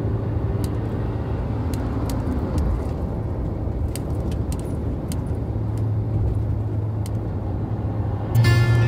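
Steady road and engine rumble of a moving car heard from inside the cabin, with a low hum and faint ticks. Music comes in loudly near the end.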